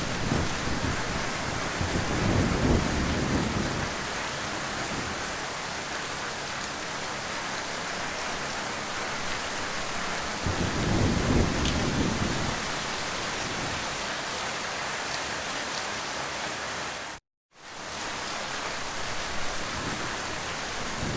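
Heavy rain falling in a steady, even hiss, with two low rolls of distant thunder rumbling under it. Near the end the sound drops out to silence for a split second, then the rain resumes.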